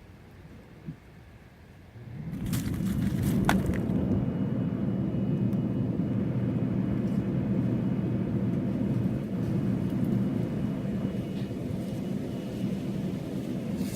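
A motor-driven machine starts about two seconds in, with a few clicks at the start, and then runs steadily with a low hum.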